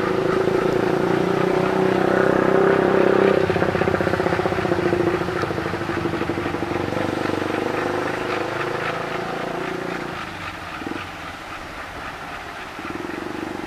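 CC 201 (GE U18C) diesel-electric locomotive's engine running as it moves a short train of old two-axle wagons at walking pace, with the wagons rolling on the rails. The engine note is loudest in the first three seconds, then eases off.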